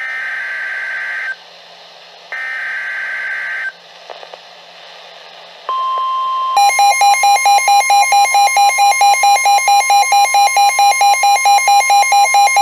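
NOAA Weather Radio Specific Area Message Encoding (SAME) header: two screechy data bursts a second or so apart. After a short pause, the steady 1050 Hz weather radio warning tone comes on, the signal that a warning follows. About a second later a weather-alert receiver's alarm starts a loud, buzzy beeping, about four beeps a second, over the steady tone.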